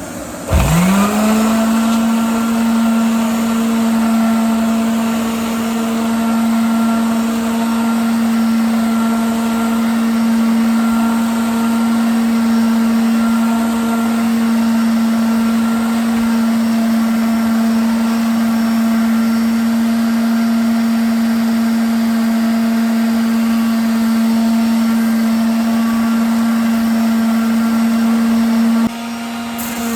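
Electric sander spinning up and running at one steady pitch while sanding a wooden tabletop, with a vacuum running alongside to pull away the dust. The sound drops in level shortly before the end.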